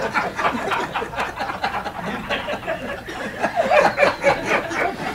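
Audience laughing, many voices at once.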